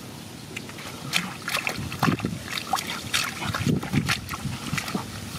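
Hands groping and grabbing in shallow muddy water and wet grass: irregular splashes, squelches and small splats, several a second.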